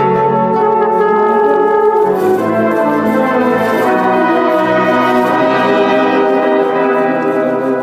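Orchestra playing, with brass instruments to the fore in held chords that change every second or two.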